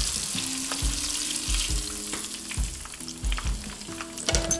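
Cornstarch-coated crappie fillet frying in a shallow skillet of hot fat, with a steady sizzle.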